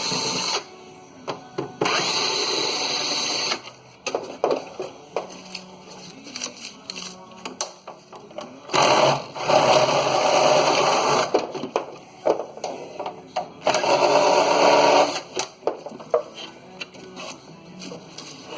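Power drill run in three bursts of one to two and a half seconds, backing out screws, with clicks and knocks of metal parts between the bursts.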